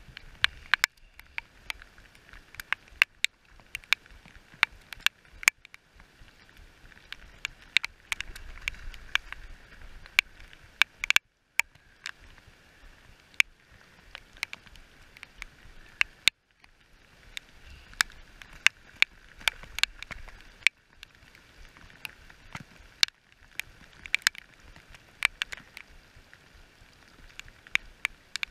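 Raindrops ticking irregularly on the camera housing, several sharp taps a second, over a steady hiss of rain falling on the river.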